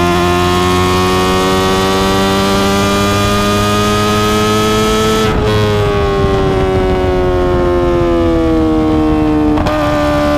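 Kawasaki ZX-25R's inline-four engine running through an Akrapovic exhaust while riding. The revs climb slowly, then fall away steadily from about halfway through as the throttle closes. Near the end there is a quick change and the engine settles at a steady pitch.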